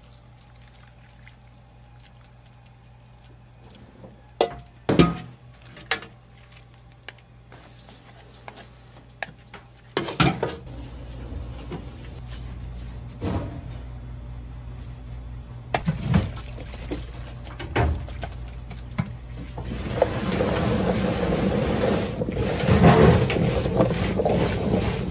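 Gloved hands tossing and squishing diced vegetables with seasoning in a large plastic basin, a wet rustling that grows louder in the last few seconds. Before it come a few sharp knocks and clatters.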